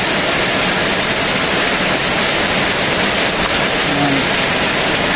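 Heavy rain falling: a steady, even downpour hiss with no letup.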